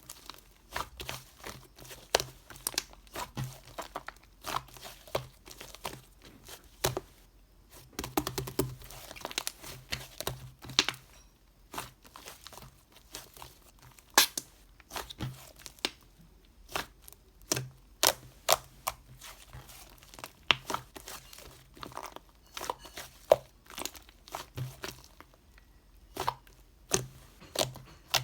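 Things being handled at close range: irregular sharp clicks and taps, a few a second, with crinkling and rustling between them.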